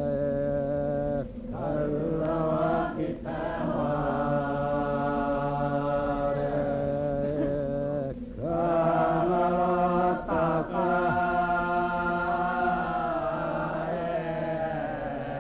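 Voices chanting on long held notes over a low steady drone, breaking off briefly a few times.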